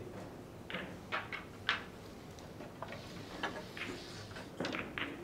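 A scatter of light, irregular clicks and taps, about nine in all, over a quiet steady background.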